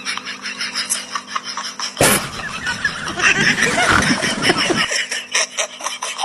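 Laughter in quick repeated pulses, broken by a sudden louder noisy stretch of about three seconds in the middle.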